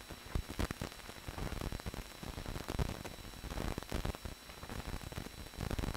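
Hiss and crackle of an old film soundtrack, with scattered clicks and pops and no other sound.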